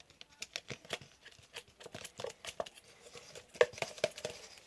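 Gooey, watery slime being stirred with a spoon in a cup: irregular soft clicks and sticky squelches, a little louder about three and a half seconds in.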